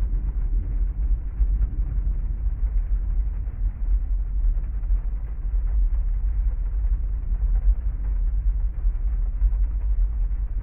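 Heavy-rain storm ambience: a steady, even wash of noise dominated by a deep low rumble, with no distinct drops, thunderclaps or other events standing out.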